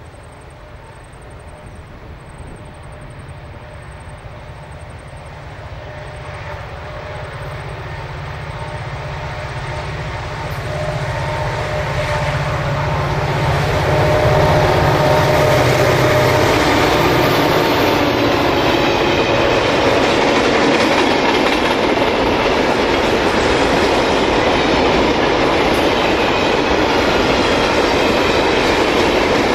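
A V/Line G class diesel-electric locomotive, with its two-stroke EMD 16-645 V16 engine, works a loaded grain train up a steep 1 in 50 grade. Its engine note grows louder as it approaches and passes about 14 seconds in. A steady rumble and clickety-clack of grain hopper wagons rolling past follows.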